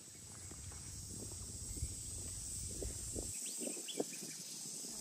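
Outdoor ambience: a steady high insect drone, with wind rumbling on the microphone that drops away about three seconds in, then light footsteps scuffing on rock and a few short bird chirps.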